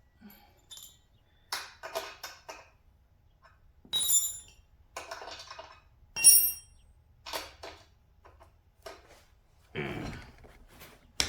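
Metal hand tools clinking as sockets and ratchets are handled and set down: a string of short metal clinks, two of them ringing brightly.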